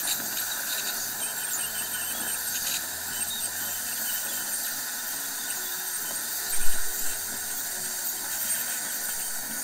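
Ultrasonic dental scaler whining steadily as it works stain off teeth fitted with metal braces, mixed with the hiss of a dental suction tube. There is a brief louder bump about six and a half seconds in.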